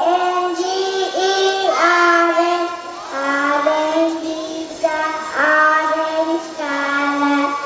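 A young girl singing a rhyme about the colour orange, holding each note for about a second in slow phrases.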